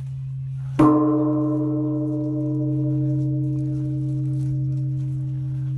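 Japanese temple bell struck once, about a second in, then ringing on with several tones that slowly fade, over a steady low hum.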